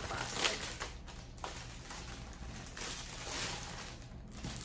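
Paper packing material rustling and crinkling in irregular bursts as it is handled and pulled aside.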